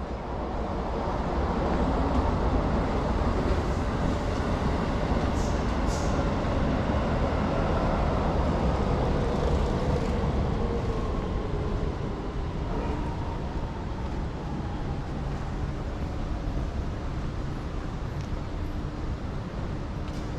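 A vehicle passing close by: its noise swells over a couple of seconds, holds, then slowly fades, with a tone in it falling steadily in pitch.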